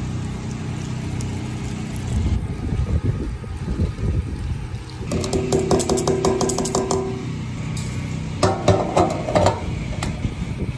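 Gasoline glugging from a jug through a plastic funnel into a portable generator's fuel tank, then the funnel lifted out with a plastic and metal clatter and the fuel cap screwed back on with a few sharp clicks. A steady low hum runs underneath.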